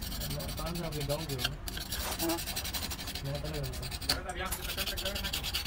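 Flat metal scraper rasping back and forth across the flange face of a cast housing from a CAT 950B wheel loader, scraping off old gasket material in repeated strokes.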